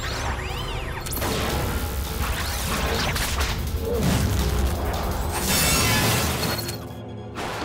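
Animated fight sound effects: whooshing swings of a glowing energy sword and metallic crashes of robots being cut down, over action music.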